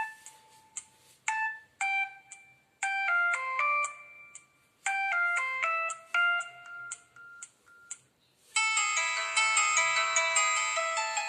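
Samsung SGH-F480 mobile phone playing its built-in alert tones through its loudspeaker: a string of short melodic phrases of a few electronic notes each, with brief pauses between them. About eight and a half seconds in, a fuller chiming tone with many overlapping ringing notes starts.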